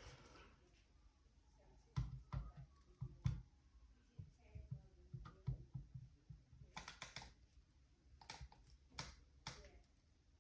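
Faint scattered clicks and knocks of handling, with louder clusters about two seconds in and again near the end; no smoke alarm sounds.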